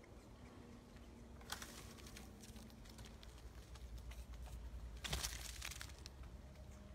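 Light scratching, clicking and rustling of a common brushtail possum clambering over tree bark and leaves, with a louder rustle about five seconds in.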